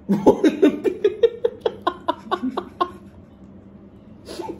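A man laughing hard in a quick run of short 'ha' bursts, about five a second, that stops about three seconds in.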